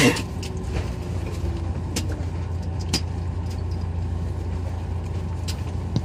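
Cabin noise inside a JR Central 383 series limited-express electric train: a steady low hum and running rush, with a few sharp clicks.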